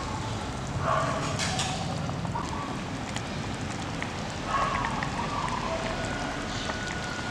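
Broth simmering in a small electric cooking pot, making a steady, even bubbling hiss. Brief faint higher-pitched sounds come through about a second in and again around four and a half seconds.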